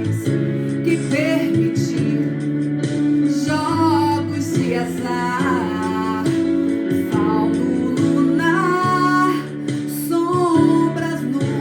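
A Brazilian popular song (MPB): a woman's voice sings a sustained, gliding melody over strummed and plucked guitar accompaniment.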